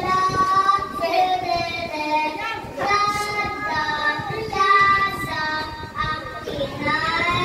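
A child singing a song, holding each note for about half a second to a second and gliding smoothly between them.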